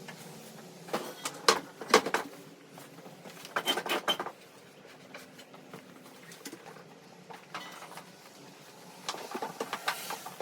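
Irregular clicks, knocks and light clatter of hard objects being handled, in three short flurries: about a second in, near the middle, and near the end.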